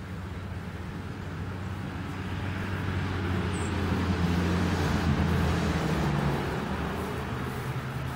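A road vehicle driving past, its engine and tyre noise swelling to its loudest about halfway through and then fading away.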